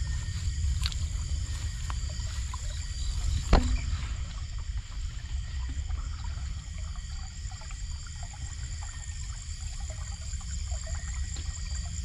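Water sloshing and trickling as someone wades through shallow water, over a steady chorus of night insects in high, even tones. A single sharp knock about three and a half seconds in.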